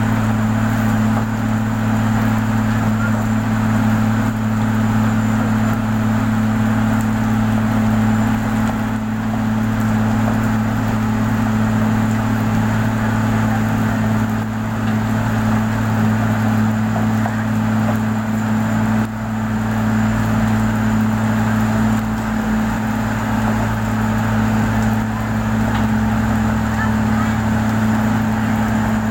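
An engine running steadily at a constant speed with a deep, even hum.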